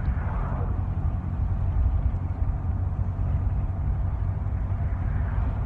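Truck driving along, with a steady low engine and road rumble heard from inside the cab.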